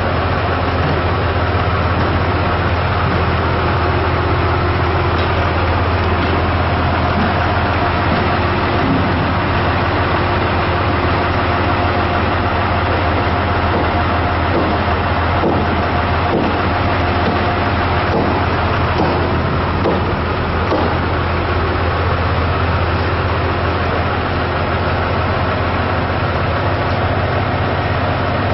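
An engine running steadily at idle, a low constant hum with a few faint knocks around the middle.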